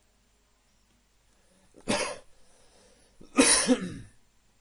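A man coughing twice, a sharp cough about two seconds in and a louder, longer one about a second and a half later.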